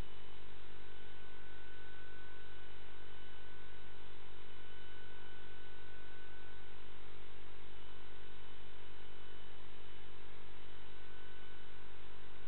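Steady electrical hum and hiss from a CCTV system's audio channel, with a faint high tone coming and going and no distinct events.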